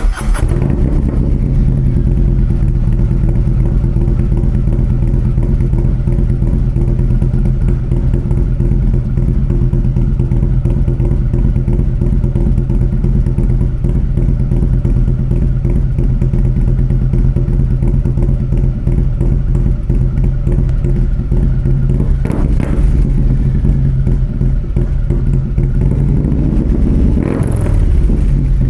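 Harley-Davidson Street Glide ST V-twin running through a custom C3 Vtwin 2-into-1 exhaust, coming in abruptly and then holding a steady, loud exhaust note, with two brief changes in pitch near the end.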